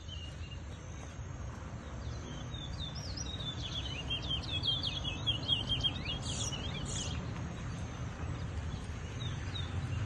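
Caged towa-towa (large-billed seed finch) singing a fast run of short chirping notes from about two seconds in to about seven seconds in, over steady low background noise.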